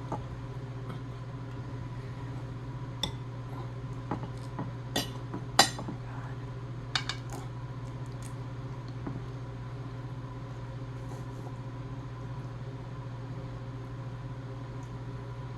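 Scattered clinks and knocks of dishes and cutlery during a meal, a few sharp ones between about three and seven seconds in, the loudest near the middle, over a steady low hum.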